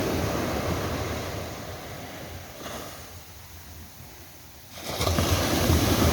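Ocean surf on a sandy beach: a wave's wash fades away over a few seconds, then the next wave breaks suddenly and loudly about five seconds in.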